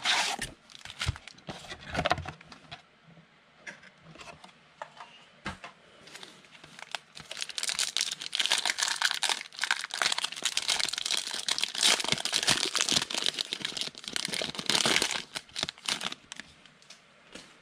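Foil wrapper of a trading-card pack being handled and torn open by hand. There are scattered rustles and taps at first as the pack comes out of its cardboard box, then a long stretch of dense crinkling from about seven seconds in until near the end.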